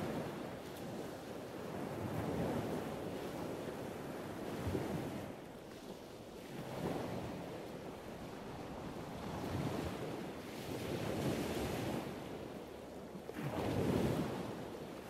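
Distant ocean surf: a steady rushing noise that swells and fades every few seconds as waves break, with some wind on the microphone.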